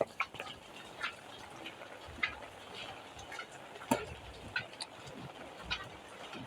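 Rain falling as a steady hiss, with scattered drips tapping at irregular intervals; the sharpest tap comes about four seconds in.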